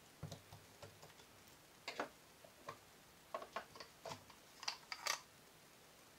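Parts of an ASG Scorpion EVO airsoft gun being handled during disassembly. A scatter of small, irregular clicks and knocks, loudest near the middle and again near the end.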